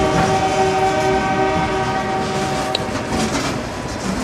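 Freight train rolling past close by, with a locomotive horn chord held through the first three seconds and then fading away under the rumble of the passing cars.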